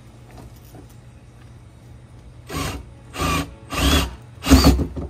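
Cordless drill boring through a plastic bung cap on a polyethylene rain barrel, run in four short bursts of about half a second each in the second half, pitch rising as the motor spins up.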